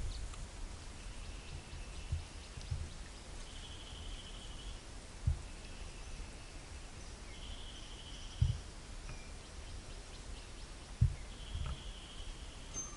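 Swamp ambience: an unseen animal gives about five short, high, buzzy calls of roughly a second each, spaced a few seconds apart, over a steady background hiss. A few dull low bumps break in, the loudest about two seconds before the end.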